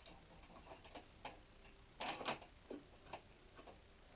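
Faint clicks and taps of a dimmer switch and back box being handled and fitted together, with a louder cluster of clatter about two seconds in and a few single ticks after it.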